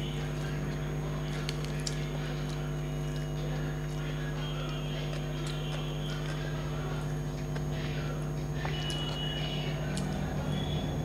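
Eating rice and curry by hand: fingers mixing the food on a plate, then chewing, heard as scattered soft clicks and mouth smacks. Under them runs a steady low hum.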